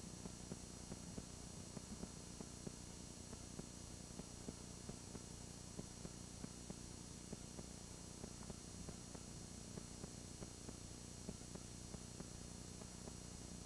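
Faint steady hum and hiss with frequent small, irregular clicks: the noise floor of an old videotape recording, with no distinct sound event.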